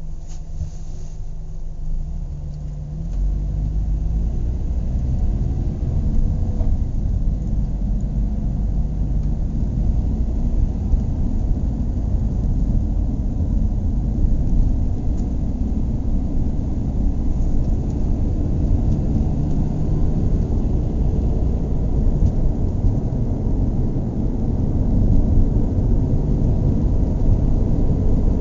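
Car engine idling, then revving up about three seconds in and holding at higher revs, louder and steady.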